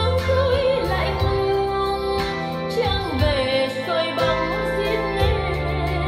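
A song with a singing voice over a steady bass line, played back through a pair of JBL L100 Century three-way speakers driven by a Marantz 4400 receiver.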